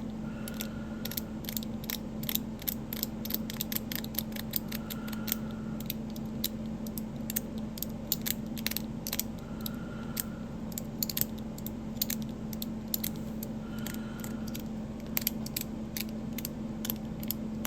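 Zirconium fidget slider worked back and forth by hand, its Teflon balls giving an irregular run of small, quiet clicks, a few a second, over a low steady hum.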